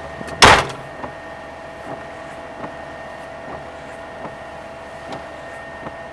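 A single sharp, loud thud about half a second in, like a vehicle door or panel being knocked or shut, over the steady hum of a vehicle with faint ticks repeating a little under once a second.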